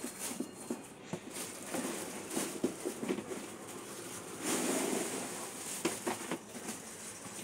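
Cardboard box flaps and plastic wrapping being handled during unboxing: scattered light knocks and rustles, with a longer stretch of plastic crinkling about halfway through as a bagged plastic tray is lifted out.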